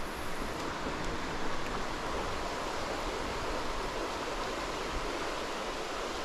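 Shallow creek water running over rocks in a riffle: a steady, even rush.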